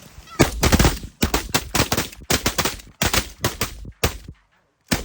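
Several hunters' shotguns firing a rapid volley at geese: well over a dozen shots packed into about four seconds, overlapping at first, then one last shot near the end.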